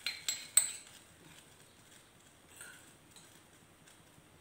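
Steel spoon clinking sharply against a small steel bowl three times in the first second as chopped tomato is scraped out into a steel cooking pot.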